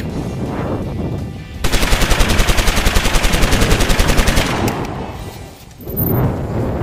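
A burst of rapid automatic-gunfire sound, about nine shots a second, starting about a second and a half in and lasting roughly three seconds.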